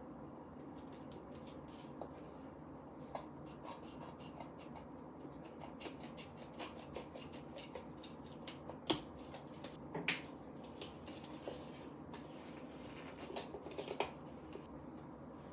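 Scissors snipping through a thin paperboard product box: a string of short, crisp cuts and crinkles of card, the sharpest snap about nine seconds in.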